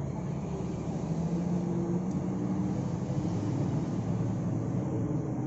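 Steady background hum of a large shop floor, with a faint, indistinct murmur.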